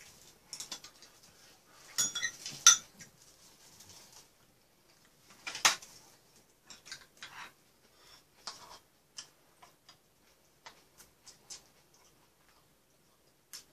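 Chopsticks and a spoon clicking and scraping against bowls and a metal frying pan while eating, in scattered irregular clicks; the loudest strikes come about two seconds in and again near the middle.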